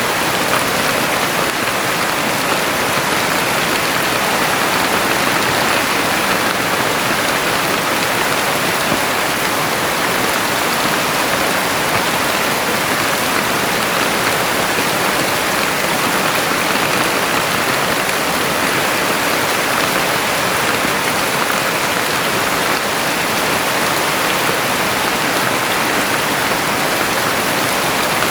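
Heavy rain falling steadily, an even unbroken hiss of dense drops.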